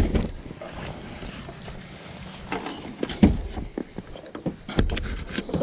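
Scattered knocks and clunks of items being handled and loaded into a car, with a sharp knock at the start, another about three seconds in, and a few more near the end.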